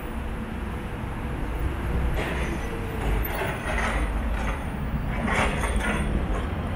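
Road traffic: motor vehicles running with a steady low rumble, and from about two seconds in, a series of louder hissing passes.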